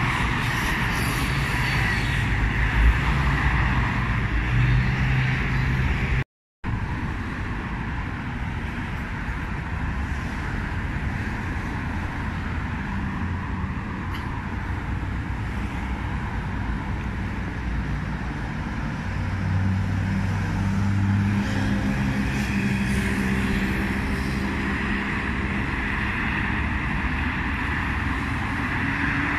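Road traffic: cars running and passing close by, a steady mix of engine hum and tyre noise. The sound drops out briefly about six seconds in. Near the end a car's engine note rises as it pulls away.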